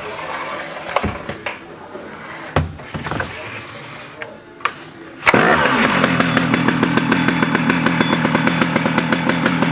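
A few clicks and knocks, then about five seconds in a Stihl 076 AV's 111 cc two-stroke chainsaw engine starts and runs steadily.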